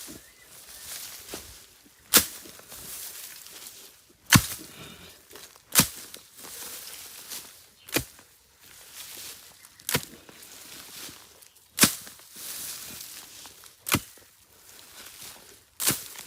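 A steel hoe chopping into soil, eight sharp strikes about every two seconds, each followed by the scrape and rustle of earth being pulled.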